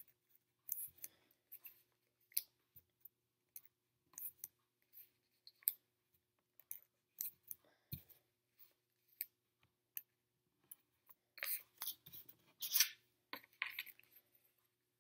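Small paper sticker dots being peeled off their backing sheet and pressed down onto a sheet of paper on a table: faint scattered ticks, crinkles and light taps, with one dull tap about eight seconds in and a louder crackly rustle of the backing sheet around eleven to thirteen seconds in.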